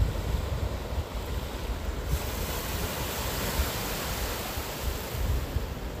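Small sea waves washing onto a rocky shore, with a rush of surf that builds about two seconds in and eases off near the end. Wind buffets the microphone with a low rumble.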